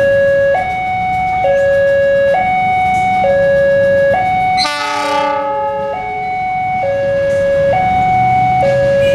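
Railway level-crossing alarm sounding its two-tone warning, switching between a low and a higher tone about once a second. A locomotive horn gives one short blast about halfway through, over a low rumble of train machinery.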